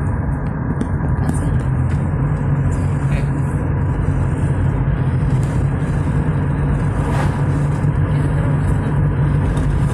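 Steady engine and road noise inside the cabin of a car moving along a highway, mostly low-pitched and unchanging.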